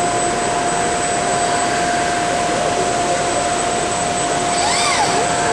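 Steady, loud background noise of a busy machine-tool trade-show hall, with a constant hum running through it. A brief rising-then-falling whine sounds near the end.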